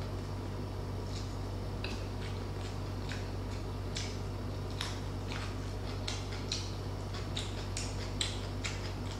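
Close-miked chewing of a fresh chili pepper: irregular small clicks and crunches from the mouth, over a steady low electrical hum.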